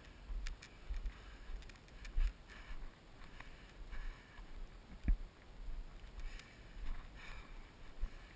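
Heavy, labored breathing of a runner jogging uphill, one hissing breath about every second. Under it are low thuds of footfalls jolting the body-worn camera, the sharpest one about five seconds in.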